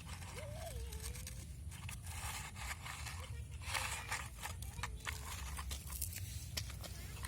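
Sand being scooped and scraped with a plastic toy excavator, in a run of irregular crunching scrapes.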